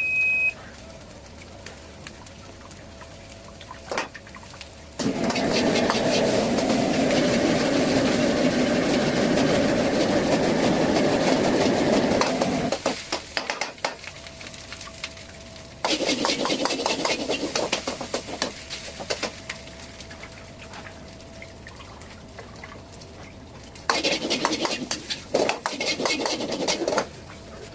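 Food sizzling and crackling in a very hot pan as it is stir-fried, in three loud bursts of several seconds each with quieter stretches between, over a faint steady hum. A short high beep sounds right at the start.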